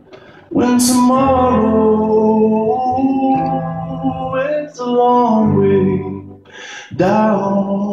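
Male voice singing long, drawn-out notes over sustained chords on a Yamaha stage piano, coming in about half a second in.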